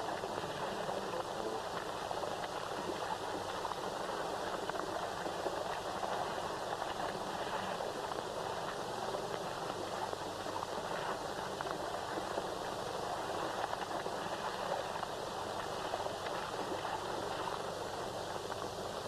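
Water splashing and sloshing as a dog and a boy swim and scramble out of a lake onto rocks: a steady, even rush of water noise.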